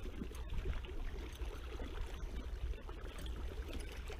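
River water running over a shallow rocky riffle: a steady rushing noise with a low rumble under it.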